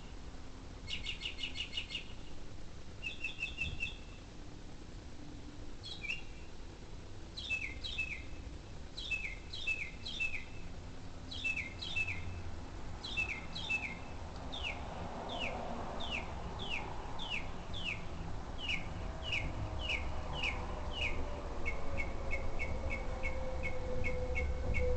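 A bird singing a string of varied phrases, each repeated several times: buzzy rattling trills, then many quick down-slurred two-part notes, then a fast series of short even chips near the end. A faint steady drone sounds underneath in the later part.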